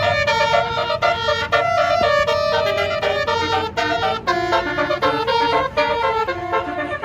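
Tour bus's basuri telolet horn, a multi-trumpet musical air horn, playing a fast melody of stepped notes over the bus engine's low running.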